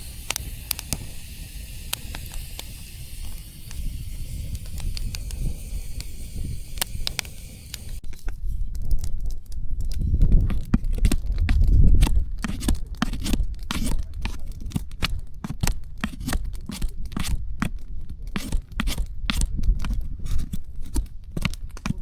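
Wood campfire crackling and popping, with sharp irregular snaps over a low rumble. A steady hiss in the first part cuts off suddenly about eight seconds in, after which the pops come thick and fast.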